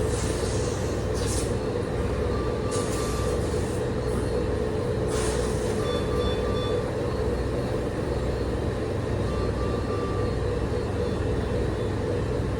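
Steady hum of hospital equipment with a short triple beep repeating about every three and a half seconds, a medical equipment alarm. A few brief hisses come in the first few seconds.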